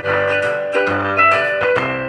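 Music played through a homemade single-transistor (2SC5200) 12 V amplifier into a loudspeaker. It starts suddenly, a melody of sharply struck notes.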